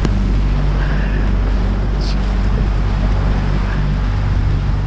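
Boat motor running steadily as the boat moves, with wind and water noise over the microphone.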